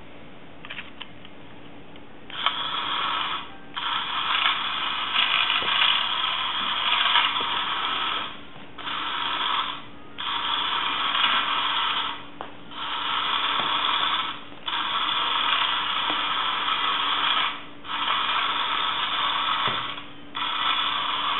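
The small battery-powered electric motor and gears of a 1960s Takatoku tin toy Volkswagen Beetle running. It starts about two seconds in and then runs in stretches of one to four seconds, with short pauses between them.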